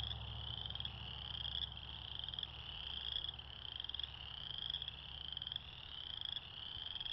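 Night-time animal chirping: a pulsed chirp that rises in pitch, repeating a little faster than once a second, over a faint low hum.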